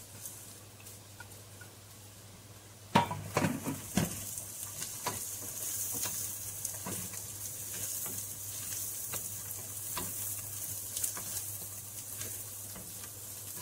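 Chopped onions and whole spices frying in oil in a nonstick pot, sizzling steadily. About three seconds in, a wooden spoon starts stirring them, knocking and scraping against the pot again and again.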